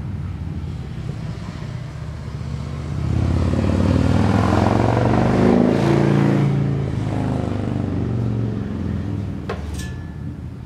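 A motor vehicle's engine passing by, growing louder to a peak about halfway through and then fading away. A single sharp click comes near the end.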